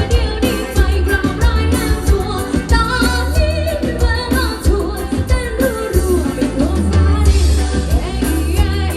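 A pop-rock song with a sung lead vocal over a band: drums, heavy bass and guitar.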